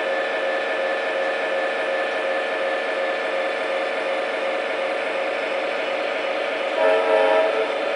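Digital diesel prime-mover sound from an MTH ProtoSound 2/3 model locomotive's speaker, revved up to notch 8 and running steadily at high revs. Near the end comes a brief, louder chord of several tones.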